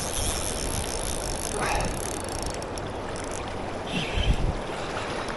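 Steady rush of a rain-swollen creek running high and fast, with a fishing reel being cranked in quick ticks over roughly the first half while a fish pulls against the line. A few low thumps about four seconds in.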